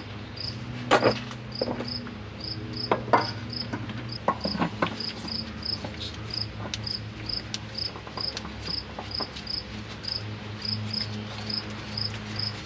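A cricket chirping steadily, about three short high chirps a second, over a low steady hum. A few sharp knocks and clicks in the first five seconds come from the large oil filter being handled and threaded on by hand.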